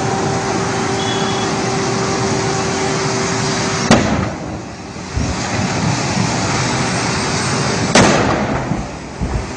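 Two explosions from a burning vehicle, about four seconds apart: the first about four seconds in, the second about eight seconds in. Each is a single sharp bang over steady background noise.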